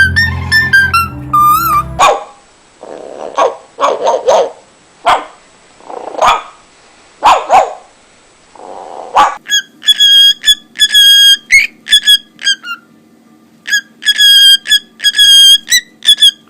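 A parrot imitates a dog with a string of short, separate barks. About nine seconds in it switches to high, steady electronic beeps in quick groups, like a phone or alarm tone. Music with whistling plays for the first couple of seconds.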